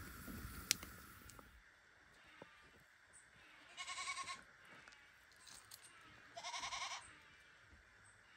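A single sharp pop about a second in, then two short wavering animal calls, each about half a second long and roughly two and a half seconds apart.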